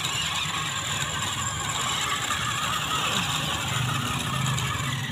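Two toy RC rock crawlers straining against each other in a tug-of-war, their small electric motors and gearboxes whirring steadily under load.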